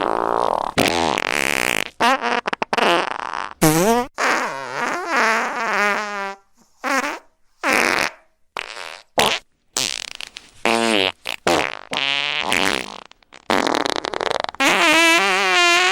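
A series of fart sound effects, one after another: short sputtering ones and longer pitched ones that waver and bend, with brief gaps between them and a long warbling one near the end.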